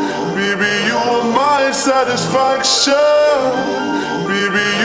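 Electronic dance track with a gliding, singing-like melody over the beat, and bright cymbal-like hits around the middle.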